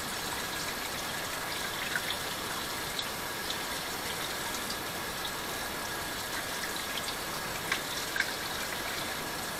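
Kitchen tap running steadily into the sink, with a few faint clicks of handling.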